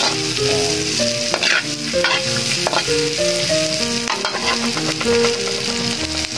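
Pieces of fried pork, onion and garlic sizzling in hot oil in a pan while being stirred, with spatula scrapes and clicks against the pan.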